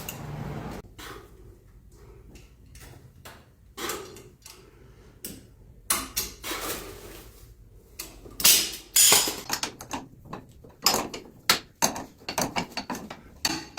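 Irregular metal clicks and knocks as a tie rod and its threaded rod end are handled and turned by hand, with a louder cluster of knocks about two-thirds of the way through.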